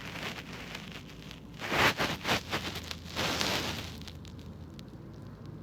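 Crackling, rustling noise close to the microphone, in two bursts about a second apart.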